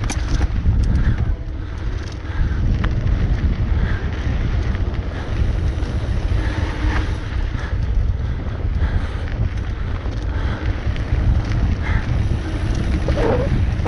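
Mountain bike descending a dirt singletrack at speed: wind rushing over the microphone and a low rumble of tyres on dirt, with scattered clicks and rattles from the bike.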